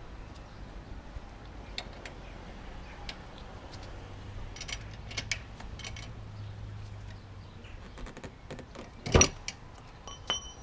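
Metal tools clicking and knocking against the brake caliper as an Allen key with a long ratchet extension strains on a seized caliper bolt, then one loud sharp crack about nine seconds in as the bolt breaks loose. A short click with a brief metallic ring follows.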